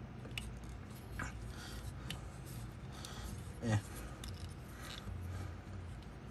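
Hard plastic parts of a Transformers action figure clicking and scraping against each other as the figure is twisted and worked into its jet mode, with a brief voice sound a little past the middle.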